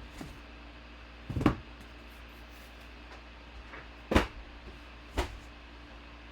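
Three dull knocks and thumps as a box is handled and set down: one about a second and a half in, a sharper one about four seconds in, and a smaller one a second later.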